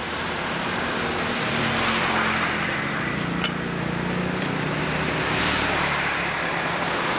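Road traffic: passing vehicle engines, a steady low hum under a rushing sound that swells about two seconds in and again near the end. A single sharp click comes about three and a half seconds in.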